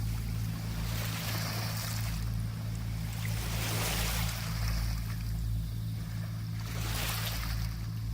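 Small sea waves washing onto the beach, swelling and falling back about every two to three seconds, over a steady low hum.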